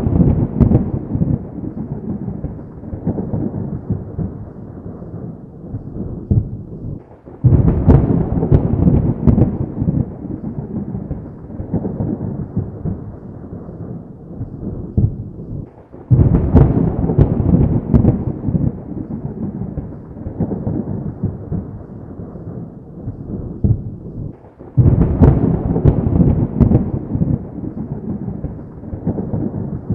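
Thunder: three sharp cracks, each followed by a long rolling rumble that fades, coming at even intervals about eight to nine seconds apart. The tail of an earlier rumble is dying away at the start.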